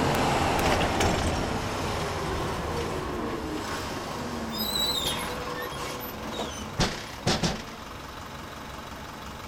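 A box truck driving past on the road: its engine and tyre noise are loudest at first and fade over the first few seconds into quieter traffic noise. A few sharp clacks come about seven seconds in.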